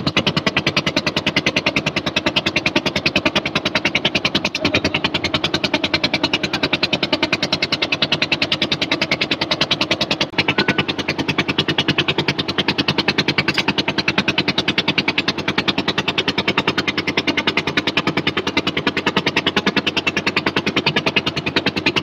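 Motorboat engine chugging steadily with a rapid, even beat while the boat is under way.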